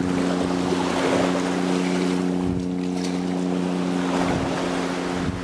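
A small engine running steadily at an even pitch, with wind buffeting the microphone and water lapping.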